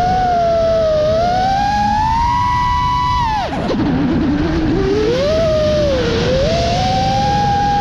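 FPV quadcopter's electric motors and propellers whining loudly, the pitch rising and falling with the throttle. About three and a half seconds in the whine drops sharply and wavers low as the throttle is cut while the drone rolls inverted, then climbs back up as power comes on again.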